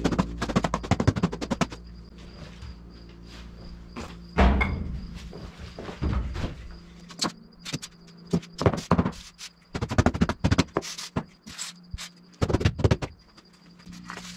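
Polystyrene insulation boards handled and pressed against a wall: a quick run of squeaky rubbing clicks near the start, a thump a few seconds in, and scattered knocks after, with an insect's thin steady chirp behind.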